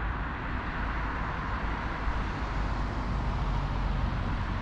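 Road traffic: a car driving round a roundabout, a steady rush of tyre and engine noise with a low rumble beneath.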